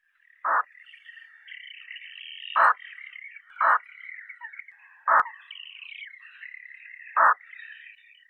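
Eurasian spoonbill giving short calls, five in all at irregular intervals, over a continuous higher-pitched chatter of other calls.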